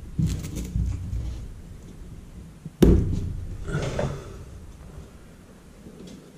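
A single sharp knock a little under three seconds in, the loudest sound, followed by about a second of scraping and rustling. A dull low rumble of handling noise fills the first second and a half.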